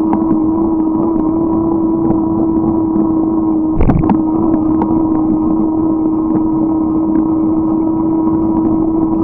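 A motor on a ride runs at one steady pitch, with light irregular ticking over it and a single sharp thump about four seconds in.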